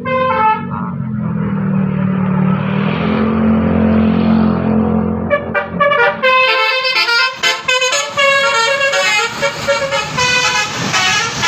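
A bus's engine rumbles past with a brief burst of horn notes at the very start, then from about five and a half seconds in its telolet horn, a set of multi-tone musical air horns, plays a quick tune of changing notes.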